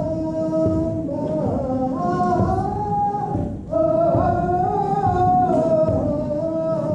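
A male voice singing long, held phrases that slide in pitch, with a short break about halfway through.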